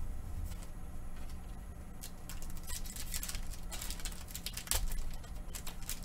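Foil booster-pack wrapper crinkling in the hands as it is opened, in many quick crackles from about two seconds in, with a soft thump at the start and another just before five seconds.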